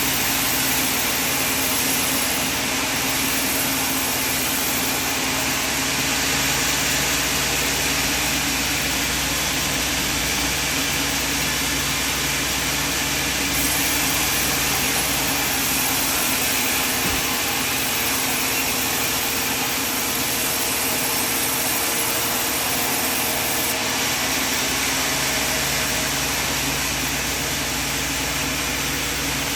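Sawmill machinery running steadily: a continuous motor hum under an even mechanical whir.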